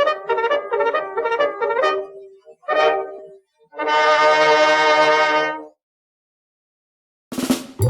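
Music with brass-like instruments: a run of short, quick notes, then a long held chord that stops about five and a half seconds in. After a pause of silence, a new, dense burst of sound starts near the end.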